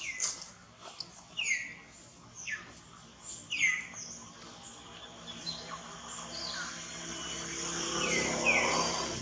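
Short high chirping calls, each falling in pitch, repeating about once a second. Behind them a rushing noise swells, is loudest shortly before the end, then fades.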